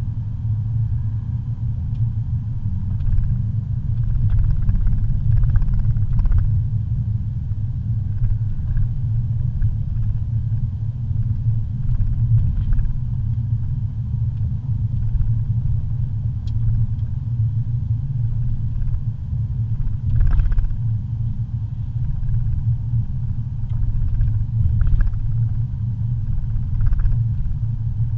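Steady low rumble of a car's engine and tyres heard from inside the cabin while driving on a paved road, with a few faint knocks and rattles now and then.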